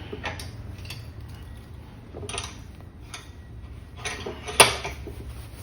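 Bench vise being cranked down to press a 16-gauge steel strip between plywood forming dies, giving scattered metallic clinks and clanks, the loudest a sharp clank about four and a half seconds in, over a low steady hum.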